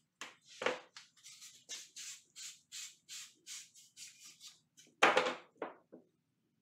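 Copper pipe ends being hand-sanded to bare metal for soldering: a quick run of short rasping strokes, about three a second. A louder scrape comes about five seconds in.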